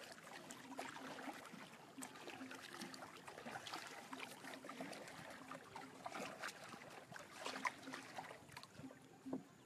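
Light water splashing and trickling at the side of a small wooden boat as a fisherman's hands work in the water hauling in a net, with scattered small clicks and drips.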